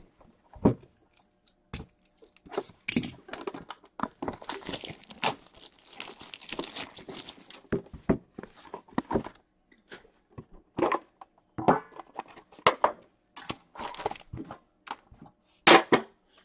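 A metal trading-card tin being opened and its wrapped packs of hockey cards handled: plastic wrap crinkling and tearing, with scattered clicks and knocks from the tin and packs. There is a sharp, louder knock near the end.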